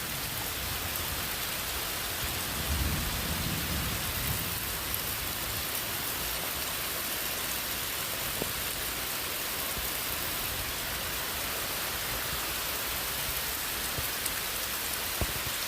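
Steady rain falling and pattering on surfaces, an even hiss throughout. A low rumble swells and fades about three seconds in.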